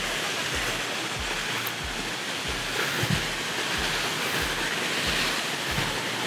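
Steady roar of a large waterfall's rushing water, even and unbroken, with a faint regular low beat underneath.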